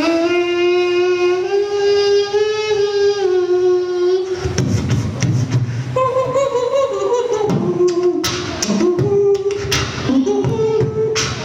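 Human beatboxing into a handheld microphone: first a long held, pitched vocal tone that steps slightly up and down for about four seconds, then a beat of vocal bass, kick and snare sounds with a melody line over it.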